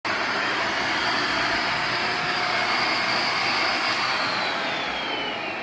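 Vacuum cleaner running with a steady rushing noise and a high motor whine; about four seconds in, the whine starts falling in pitch as the motor slows.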